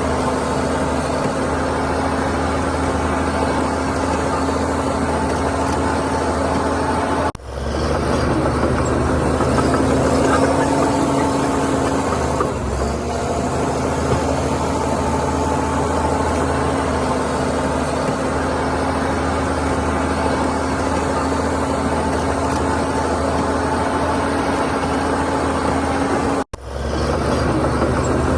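Heavy diesel engine of earthmoving machinery running steadily at a constant pitch. The sound cuts off for an instant twice, about a quarter of the way in and near the end.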